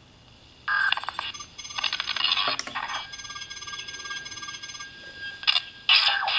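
Electronic sci-fi interface beeps and chimes played through the small built-in speaker of a video-brochure card, tinny and without bass. They start about a second in, with a sharp click partway through, and a man's voice begins near the end.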